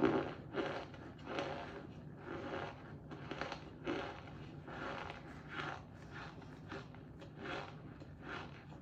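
Crunchy cornstarch being bitten and chewed close to the microphone, a steady run of dry crunches about one or two a second.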